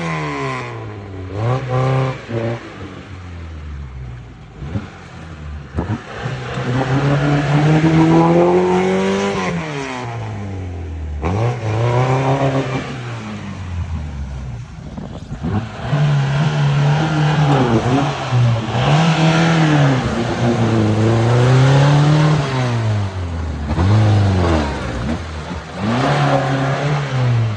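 Off-road 4x4's engine revving up and down again and again, its pitch rising and falling every second or two, with brief easings off between pushes.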